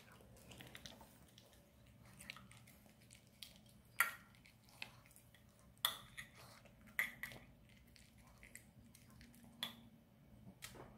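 Maltese dog chewing and lapping soft food from a ceramic bowl, with a few sharp clinks of a metal spoon against the bowl, the loudest about four, six and seven seconds in.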